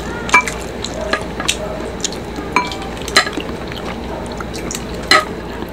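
A black plastic ladle and spoons clinking against a glass baking dish and glass bowls as broth is ladled out: a series of sharp, irregular clinks, several ringing briefly.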